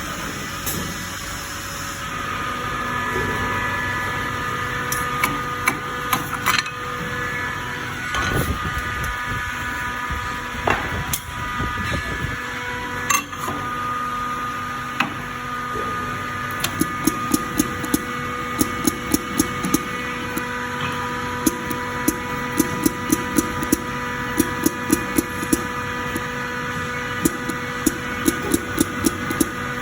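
Automatic silicone dispensing machine at work: a steady hum with several held tones, a few scattered knocks, and, from about halfway on, repeated runs of rapid, even clicking.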